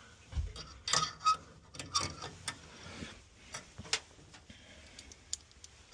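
Irregular light metallic clicks and taps of hand tools and small parts being handled on a gas furnace's burner assembly, as the flame sensor is taken out for cleaning. There is a dull thump about half a second in.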